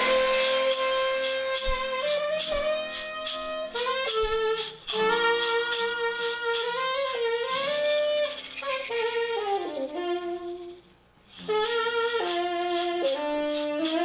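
Tenor saxophone playing a slow, held melody over a steady hand-percussion (shaker) rhythm. Near the end of a phrase the sax note bends downward, the music drops out for a moment about ten and a half seconds in, then the sax and percussion come back in.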